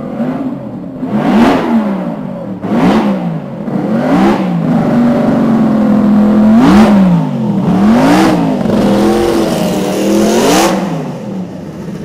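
Supercharged 1.5-litre BRM V16 racing engine revved in about six sharp throttle blips, the pitch rising and falling quickly each time, with a short steadier stretch in the middle.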